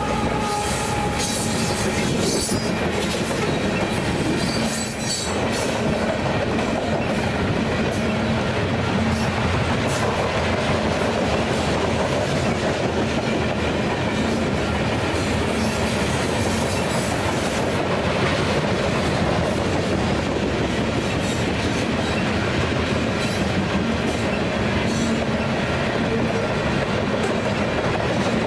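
A Union Pacific freight train's covered hopper cars rolling past close by, with a steady, even rumble of steel wheels on the rails. A locomotive horn trails off in the first two seconds.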